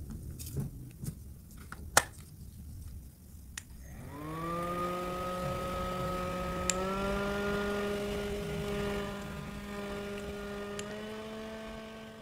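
Plastic handling knocks and a sharp click, then a battery-powered handheld mini fan's small motor starts with a rising whine about four seconds in and runs steadily. Twice a small click of the switch is followed by a step up in pitch as the fan moves to a higher speed setting.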